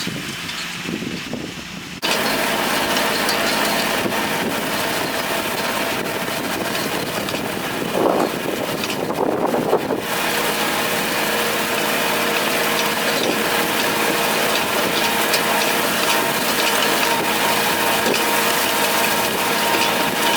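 Kubota diesel tractor running with a PTO-driven Rhino hay tedder at work: a dense mechanical clatter of the turning rotors and gearbox over a steady engine hum. The sound jumps louder and brighter about two seconds in.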